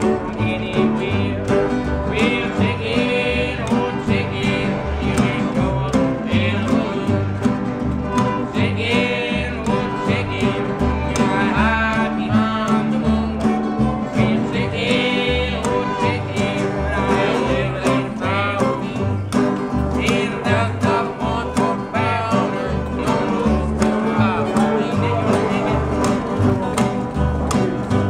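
Acoustic string band playing: fiddle, a metal-bodied resonator guitar played lap-style with a slide, two acoustic guitars strumming and an upright bass plucking a steady, even bass line.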